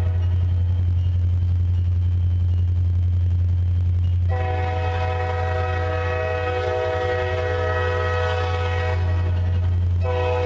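EMD SD40-2 locomotive's 16-cylinder two-stroke diesel running with a steady low drone as it pulls a train. Its air horn sounds one long chord from about four seconds in to near the end, breaks off briefly, then starts again just at the end.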